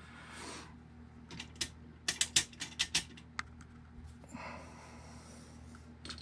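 A quick run of light clicks and taps, about a dozen in two seconds, followed by a brief soft rustle: small tools and parts being handled on an RC buggy chassis at a workbench.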